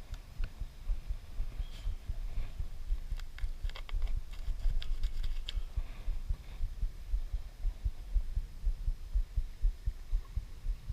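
Uneven low rumbling of wind buffeting and handling on the microphone, with scattered light clicks and taps, most of them in the middle of the stretch, as the catfish is handled for weighing.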